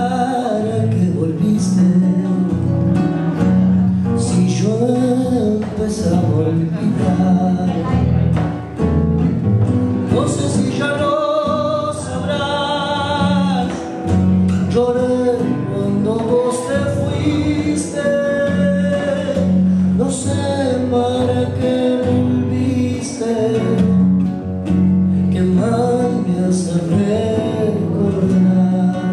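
Live Argentine zamba: a man singing with vibrato over two acoustic guitars.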